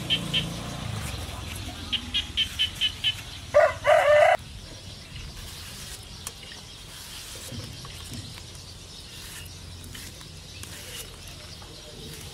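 A quick run of about six short, high chirps, then a loud, harsh call of just under a second from a chicken. After it, only faint scattered clicks of a knife cutting through banana stalk over a low steady background.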